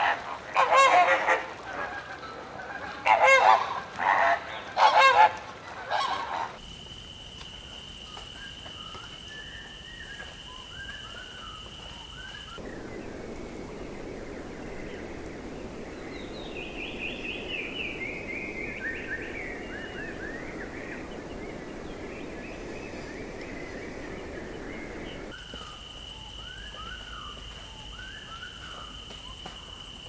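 Flamingos honking: a run of about five loud, goose-like calls in the first six seconds. After that come quieter bird chirps and whistles, with a steady high whine in parts and a descending series of bird notes in the middle.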